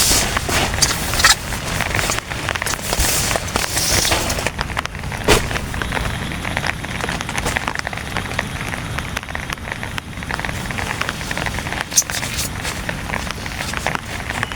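Heavy rain pattering on a tent, a dense crackle of drops with occasional sharper single splats. The hiss is heavier for the first four seconds or so, then eases a little.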